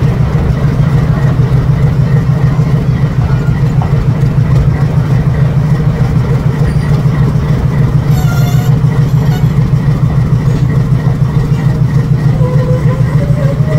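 Meter-gauge diesel locomotive idling close by, a loud steady low throb with an even pulsing beat. A brief high-pitched squeal cuts in about eight seconds in.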